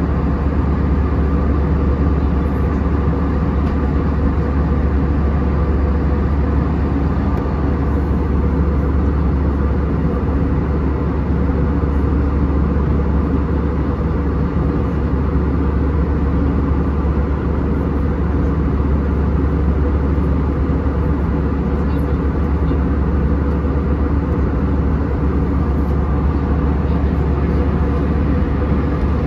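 Airbus A320 cabin noise in flight: the steady low drone of the jet engines and the air rushing past the fuselage, heard from inside the cabin.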